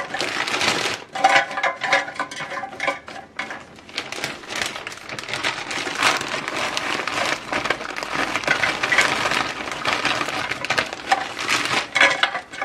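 Frozen french fries poured from a plastic bag into an air fryer's basket, clattering and rattling in a steady stream with the bag crinkling; near the end a hand stirs the fries about in the basket.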